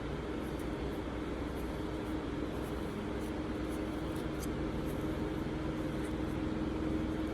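Steady mechanical hum of a running appliance, holding one low tone, with a few faint light ticks over it.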